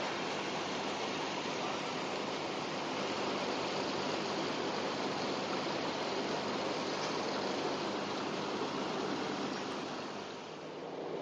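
Steady rushing, water-like noise with a faint low hum at a flood-pumping site where large hoses carry pumped floodwater; it dips briefly near the end.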